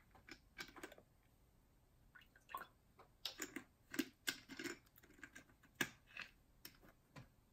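Plastic screw cap of a PET drink bottle being twisted: faint, scattered clicks and crackles of the cap and bottle plastic.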